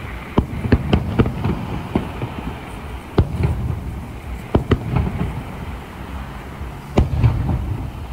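Aerial firework shells bursting: an irregular run of sharp bangs and cracks, several in quick clusters, over a low rumble.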